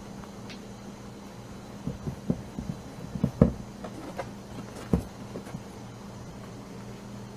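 Baby rabbits gnawing and tugging at a carrot on a cardboard box: a scatter of short soft knocks and crunches in the middle, two of them louder, over a steady low hum.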